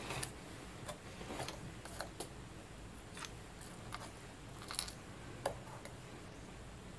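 Faint, scattered light clicks and taps as small plastic craft embellishments are picked up and pressed onto papier-mâché advent calendar boxes. The two sharpest clicks come about five seconds in.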